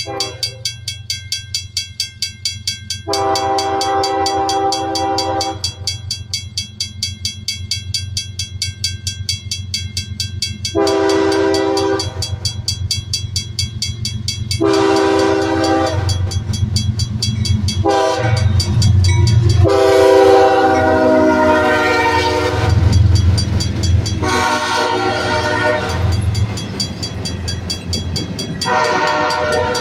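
Freight train's diesel locomotive sounding its horn in five blasts, the first and fourth long, as it approaches. Its low engine rumble grows louder midway as the locomotive passes, and the freight cars roll by after it.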